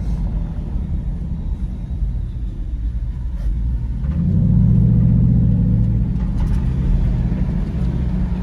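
Dodge Durango 392's 6.4-litre HEMI V8 running with a steady low sound, swelling louder for a couple of seconds about four seconds in.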